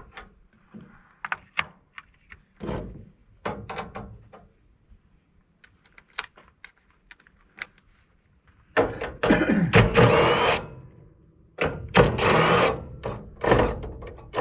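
Scattered clicks and knocks of metal parts being handled while an air-conditioning unit is taken apart. About nine seconds in, a power drill runs in two bursts of about two seconds each, with a rising whine as it spins up.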